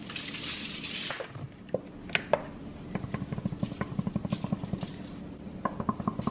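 Seasoning shaken and ground over a tray of asparagus: a short hissing rattle of granules in the first second, then runs of fast, even clicking from a seasoning grinder being twisted.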